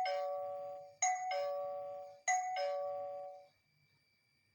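Electronic doorbell chime of an M600 fingerprint smart door lock, pressed repeatedly: a two-note ding-dong, a higher tone then a lower one, rung three times about once a second, the last one dying away about three and a half seconds in.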